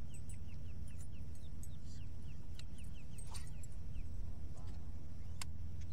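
A bird calling a quick run of short, falling chirps, about three or four a second, that stops about halfway through. Under it runs a steady low hum, with a few sharp clicks and a brief lower call near the end.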